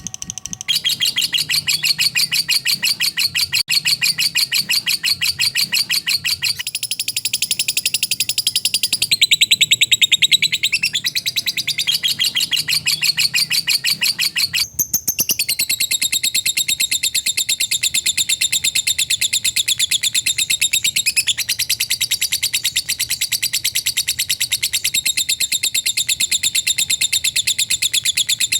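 Lovebird singing its long, rapid chattering song (ngekek): a fast, tightly packed string of high notes that runs on almost without pause, broken only briefly about halfway through.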